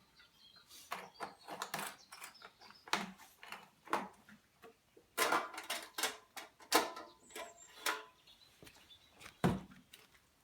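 Scattered clicks, clunks and rattles of hands working on the backhoe during refuelling and checks, with no engine running. The sounds come at irregular intervals, several in close clusters.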